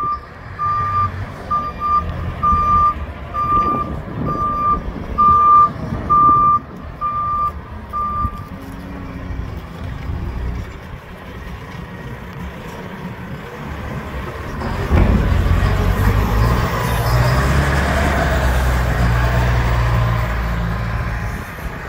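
Manitou MLT 841 telehandler's reversing alarm giving about ten steady beeps, a little under one a second, over its idling Yanmar diesel engine, then falling silent about eight seconds in. About fifteen seconds in the engine gets markedly louder as the machine drives off.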